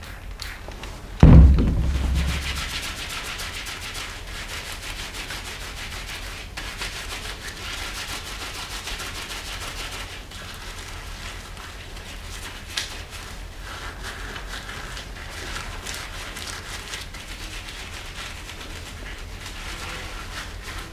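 A single loud thump about a second in, then a steady rustle of gloved hands rubbing together, spreading disinfectant over the outer gloves, with one short click a little past the middle.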